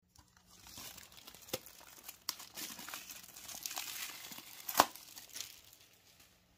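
Clear plastic shrink-wrap being torn and peeled off a Blu-ray case: continuous crinkling with a few sharp snaps, the loudest about three-quarters of the way through, dying away near the end.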